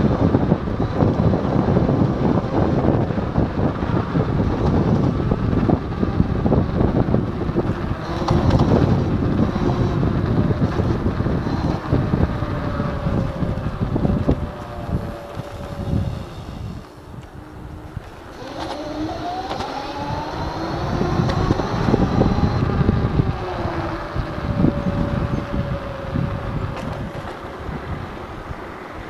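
Wind buffeting the microphone and road noise from a Kaabo Wolf Warrior X Pro electric scooter ridden at speed. A thin motor whine runs through it. Just past the middle the noise eases as the scooter slows, then the whine climbs in pitch as it speeds up again.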